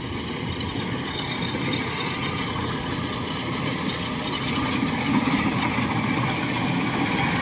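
Kubota DC-105X rice combine harvester running as it cuts and threshes, a steady engine and machinery drone that grows louder as the machine approaches.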